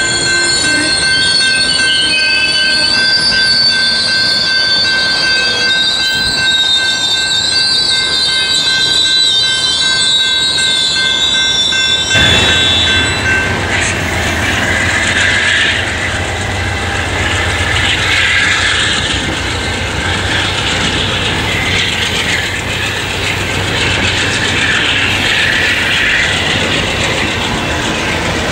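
Amtrak bilevel Superliner passenger cars roll by, their wheels squealing in several high, steady tones. About twelve seconds in, the sound changes to the steady low rumble of a GE Genesis diesel locomotive pulling away under power, mixed with wheel and rail noise from the stainless-steel Amfleet cars behind it.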